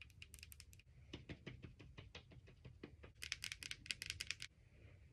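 Long acrylic nails tapping quickly on plastic skincare packaging, first a serum dropper bottle and then a tub of moisturizing cream, in quick runs of sharp clicks. The densest, loudest run comes a little past the middle.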